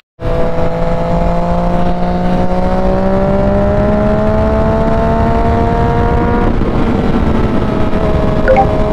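Yamaha FZ-09's inline-three engine pulling under steady throttle, its pitch slowly rising. About six and a half seconds in, the pitch drops at an upshift, then climbs again.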